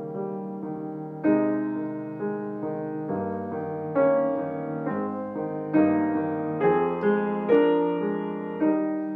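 Piano playing a slow, gentle prelude: sustained chords with new notes struck about once a second, each ringing and fading.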